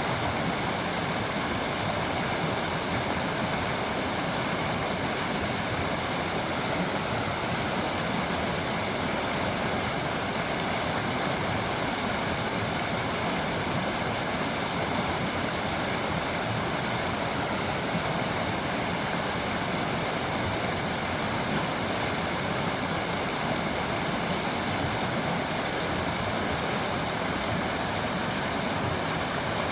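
Creek water running and babbling over stones: a steady, even rush.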